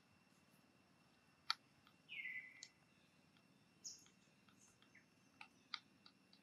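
Faint, sharp clicks of peanut shells cracking as a young monkey bites and chews them, half a dozen scattered over the seconds. About two seconds in comes one short chirp that falls in pitch.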